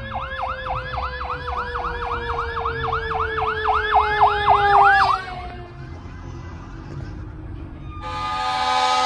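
Fire engine siren on a fast yelp, about five cycles a second, over a lower siren tone that slides slowly down in pitch. The yelp cuts off about five seconds in, and near the end a loud air horn blast sounds.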